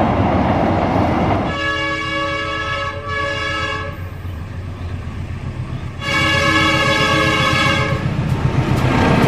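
Diesel locomotive horn, a chord of several tones, blown twice in quick succession about a second and a half in, then a third blast of about two seconds about six seconds in. Underneath runs the steady rumble of the oncoming train.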